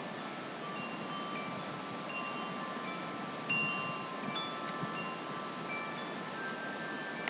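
Steady rush of a rain-swollen creek, with wind chimes ringing scattered clear notes over it.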